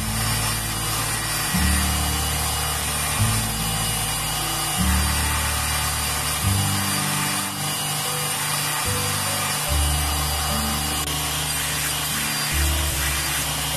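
Belt grinder running with a steel knife blade pressed against the abrasive belt at the contact wheel, a steady grinding hiss as the blade's bevel is ground. Background music with a low bass line plays underneath.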